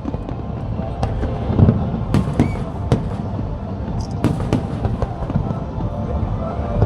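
Aerial fireworks bursting in a display: a string of irregular bangs and crackles, several a second at times, over a continuous low rumble of distant explosions.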